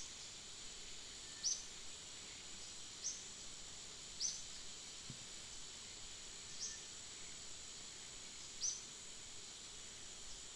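Forest ambience: a steady high insect drone, with a short, high chirp that sweeps downward, repeated about every one to two seconds.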